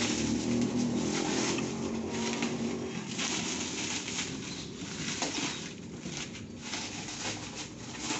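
Packing tape and plastic wrap being torn and rustled off a cardboard box, in irregular scratchy bursts with cardboard scraping as the box is handled.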